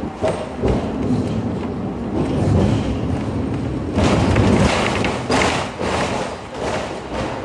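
Hong Kong double-decker tram no. 124 running along its street rails, heard from the upper deck: a steady rumble and rattle with scattered thumps, louder for about a second around four seconds in.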